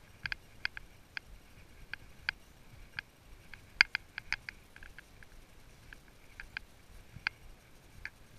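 Horse walking under a rider: light, irregular clicks and clinks, two or three a second, the loudest a little before the middle.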